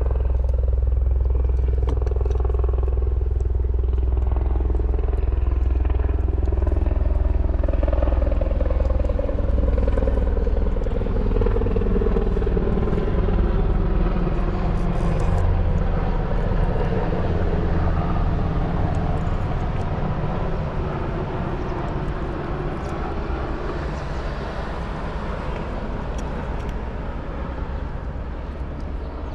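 Deep, steady engine drone, its pitch slowly falling around the middle and its level easing off over the last third.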